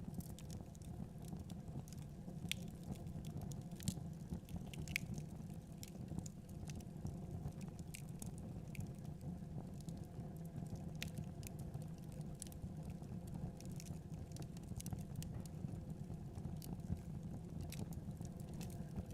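Wood fire crackling in a fireplace: irregular sharp pops and snaps from the burning logs over a steady low rumble.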